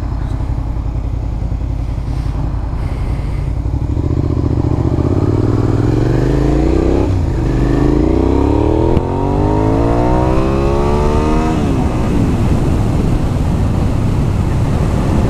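Suzuki SV 650's V-twin engine pulling away and accelerating, its pitch climbing in each gear with two upshifts, a little under halfway and about three quarters of the way through, over steady wind noise.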